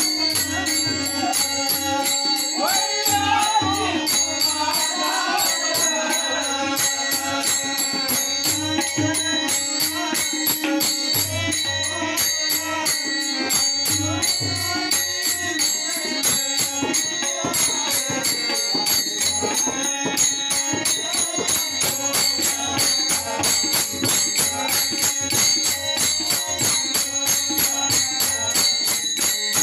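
Live Marathi devotional song with harmonium and tabla, backed by a steady metallic jingling on the beat. A man's voice sings in places, most clearly a few seconds in.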